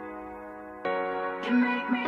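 Background electronic music: sustained synth chords, stepping up to a new, louder chord just under a second in, with a short gliding note near the end.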